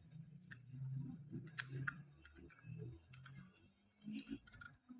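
Faint handling of a plastic digital multimeter case as its back cover is pressed shut, with scattered small plastic clicks, the sharpest about a second and a half in, over soft rubbing of fingers on the case.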